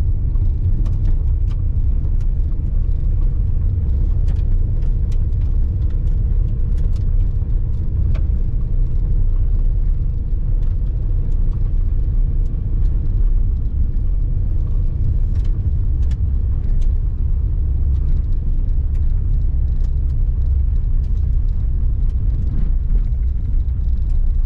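A car driving on a rough dirt and gravel road, heard inside the cabin: a steady low rumble, with frequent small clicks and knocks scattered through it.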